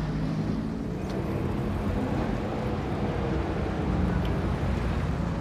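A motor vehicle's engine idling, a steady low hum, over general street traffic noise.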